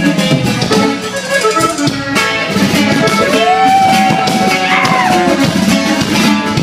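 Norteño band music, an instrumental passage between sung lines, with drums and plucked strings, and one long held note a little past the middle.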